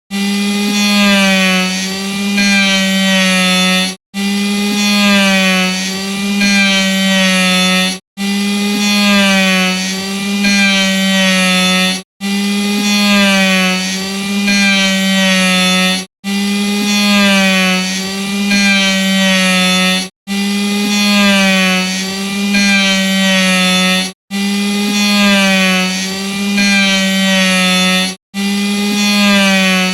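Electric saw running with a steady motor whine whose pitch wavers up and down as it works. The same four-second stretch repeats over and over, each time broken by a brief drop to silence.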